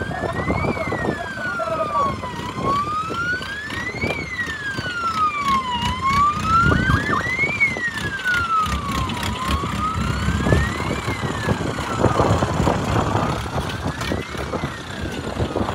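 A siren wailing in slow, even rises and falls, about one cycle every three and a half seconds, over vehicle noise.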